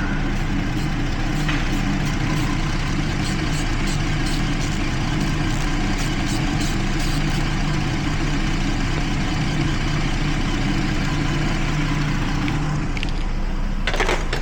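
Jeep Liberty V6 idling steadily while misfiring on cylinder 1. A sharp click comes near the end.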